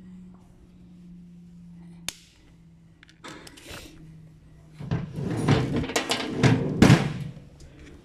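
Knocks, clatter and rustling as hand tools and a plastic-and-metal headlight projector assembly are handled on a cardboard-covered workbench, loudest from about five to seven seconds in with a sharp knock near the end. A steady low hum runs underneath for the first few seconds.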